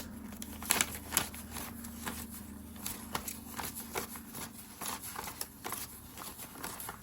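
Paper banknotes being handled and counted out by hand: irregular crisp rustles, flicks and snaps of bills, the sharpest near the start, over a faint steady low hum.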